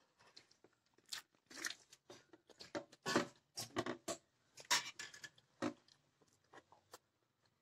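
A hand mixing coarse ground cashew and fried coconut in a steel plate, giving irregular gritty crunches and scrapes of crumbs against the metal.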